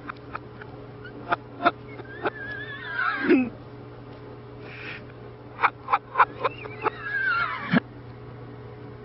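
A cat batting at a toilet-paper roll on its metal holder: a series of sharp taps in two clusters, and twice a wavering high squeal lasting about a second, each ending on a low thud.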